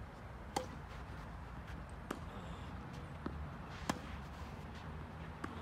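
Tennis ball struck by rackets in a rally: a serve hit with a sharp pop about half a second in, then strikes and bounces going back and forth across the court, the near player's hits loudest and the far ones fainter, over a steady low rumble.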